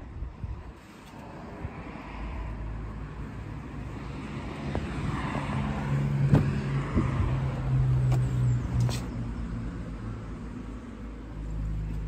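A motor vehicle's engine running with a steady low hum that builds up from about two seconds in and eases off after the middle, with a couple of sharp knocks around the middle.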